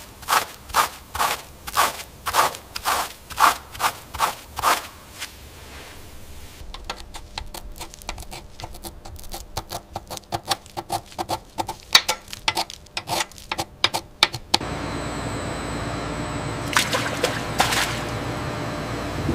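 A stiff bristle brush scrubbing caked mud off rusted, pitted steel plate in quick even strokes, about two or three a second. After about six seconds comes a metal pick scraping and flicking off flaking rust and paint in fast, irregular ticks. About fifteen seconds in, this gives way to a steady fizzing hiss of bubbles as a rusted steel part is lowered into a tank of liquid.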